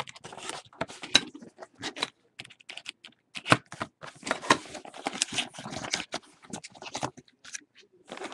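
Hands opening a cardboard box of baseball card packs. There are irregular clicks, scrapes and rustles of cardboard and pack wrappers, busiest in the middle.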